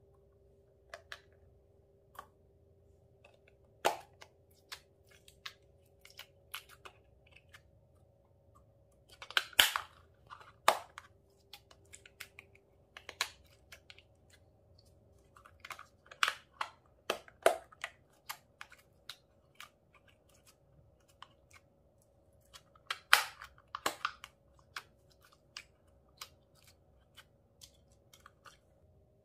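Hands handling slime and a round plastic compartment container of slime: scattered clicks and crackles from the plastic and the slime, coming in a few short clusters, over a faint steady hum.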